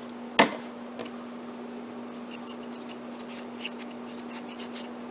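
Handling noises on a tabletop: one knock about half a second in, then light clicks and scratches of fingers working a small homemade clear-plastic mini cannon, over a steady hum.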